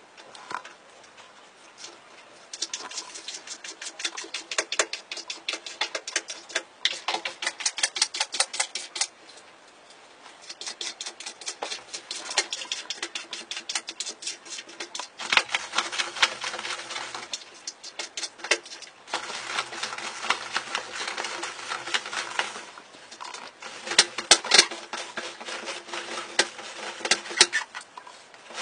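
A cat pawing at a wall-mounted toilet roll and pulling the paper off it: rapid, uneven clicking and rattling that comes in runs of several seconds with short pauses.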